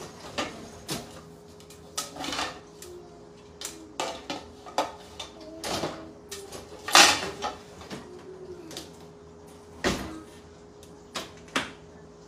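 Dishes and utensils handled on a kitchen counter: a dozen or so separate clinks and clatters, the loudest about seven seconds in, with a duller knock near ten seconds.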